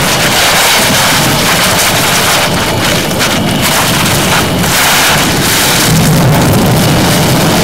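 Dung beetle shoving its dung ball against crumbly soil: a loud, continuous gritty crackling and grinding of dung and earth.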